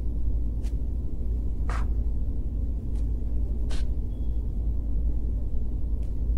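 A steady low rumble runs throughout. Over it come about five faint, sharp snaps, a second or so apart, as ampalaya (bitter gourd) leaf stems are picked and broken by hand.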